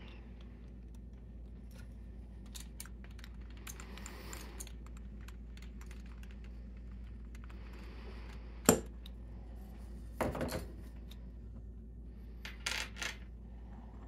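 Padlock being taken apart with a screwdriver: scattered small metal clicks and clinks, one sharp metallic click a little past halfway, then two short clattering bursts.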